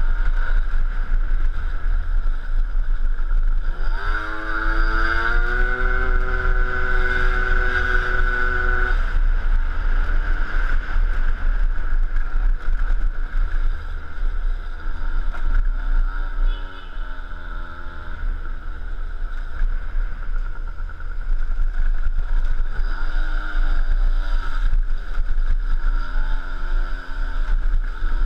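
Peugeot Speedfight 2 scooter's two-stroke engine under way. It revs up about four seconds in and holds high for about five seconds before easing off, runs lower through the middle, then pulls up again and drops back near the end. A constant low rumble of wind and road runs underneath.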